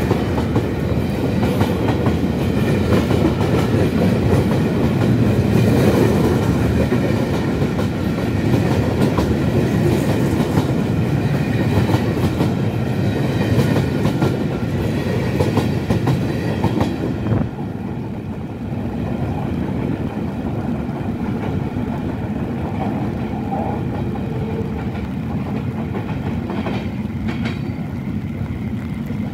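Freight train of tank wagons and flat wagons rolling past close by, the wheels clattering over the rail joints. About 17 seconds in the level drops as the last wagons pass, leaving a quieter, steady noise as the train pulls away.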